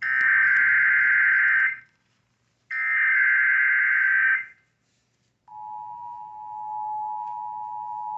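Emergency Alert System tones over FM radio: two buzzing bursts of SAME header data, each about two seconds long with a second's pause between them. About five and a half seconds in, the steady two-tone attention signal starts and holds, a little quieter than the data bursts.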